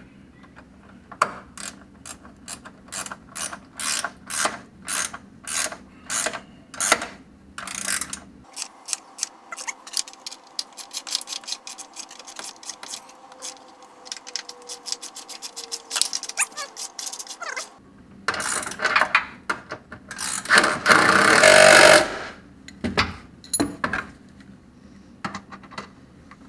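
Hand ratchet with a 10 mm socket clicking in repeated strokes as the running-board mounting bolts are run in and tightened. Near the end there is a louder, noisy rattling burst.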